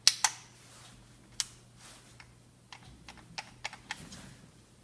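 Sharp plastic clicks from the trigger and trigger lock of an AirHawk cordless air compressor being worked by hand. Two loud clicks come at the start and one about a second and a half in, followed by a run of lighter clicks.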